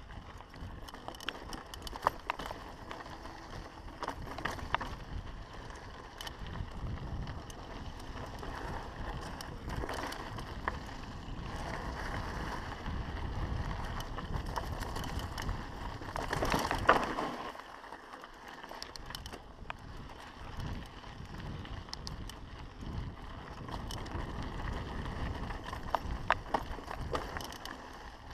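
Mountain bike riding down a dirt singletrack: tyres rolling over dirt and rocks, with the bike clattering in frequent short clicks and knocks. It gets louder for about a second a little past the middle.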